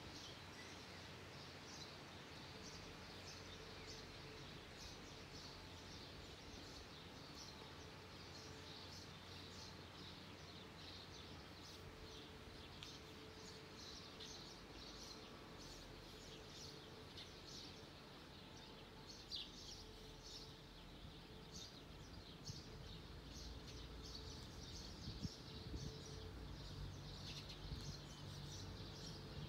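Small birds chirping in short, frequent calls over faint outdoor background noise; a low rumble slowly grows louder in the last few seconds.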